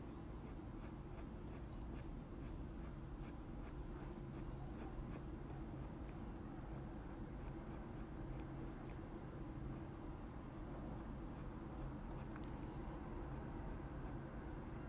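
Faber-Castell Polychromos coloured pencil scratching on kraft card in short, quick strokes, about two to three a second, as hair-like lines are coloured in.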